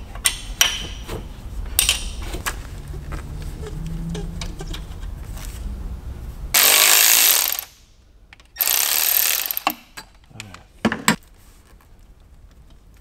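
Hand-tool work on an engine: scattered light metal clicks and scrapes as a stud is worked out with a double nut. A little past halfway come two loud bursts of hiss, each about a second long, from an unnamed source.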